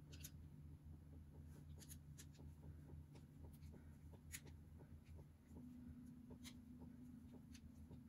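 Faint scattered clicks and scrapes of a small flathead screwdriver tightening the fitting where a propane hose joins a gas furnace burner, over a low steady hum.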